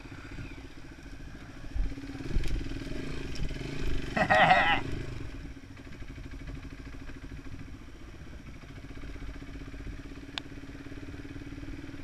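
Small single-cylinder dirt-bike engine running steadily at low speed while the bike rides over rough ground, with a few knocks from the ride. A brief, louder wavering burst comes about four seconds in.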